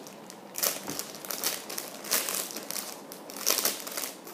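Clear plastic packaging bag crinkling as it is handled and pulled open, in a string of uneven rustles.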